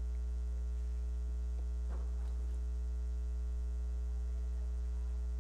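Steady electrical mains hum with a ladder of higher overtones, unchanging throughout. A faint, brief sound rises through it about two seconds in.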